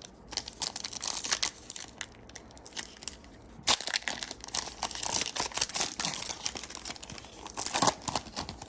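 Trading card pack wrapper being torn open and crinkled by hand, a dense crackling in two long spells with a short pause about three and a half seconds in.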